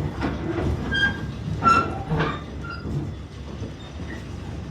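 Narrow-gauge railroad passenger car riding on the track: a steady low rumble with repeated knocks and clanks, and a few short high squeals about a second in and near the middle.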